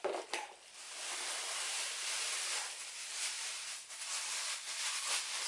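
Plastic bag crinkling and rustling steadily as it is handled and opened, with a few sharp clicks near the start.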